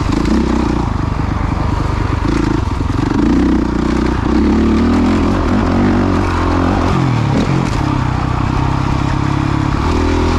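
Motocross bike engine revving up and down as the bike is ridden around the track, heard close up from the onboard camera; the pitch rises and falls, with a marked dip about seven seconds in.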